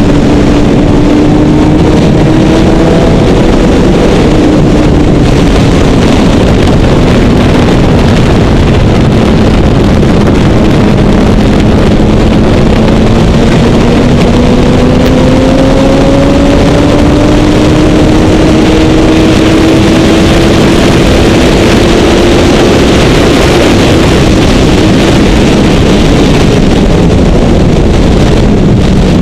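Motorcycle engine running at track speed under heavy wind noise on a helmet-mounted microphone. The engine note sinks slowly, climbs again over about ten seconds, then drops near the end.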